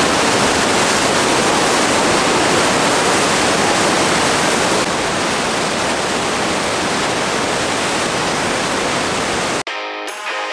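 Huka Falls on the Waikato River: a loud, steady rush of white water, dipping slightly in level about five seconds in. It cuts off near the end and music begins.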